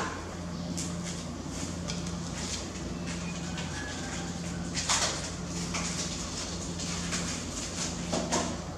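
Low steady hum under a few short knocks and scuffs, with the louder ones about five seconds in and near the end, as a baby macaque shifts about on a plastic stool.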